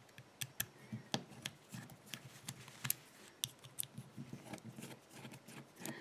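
Small screwdriver turning the screws out of a metal safe-lock cover: faint, irregular clicks and light scrapes of metal on metal.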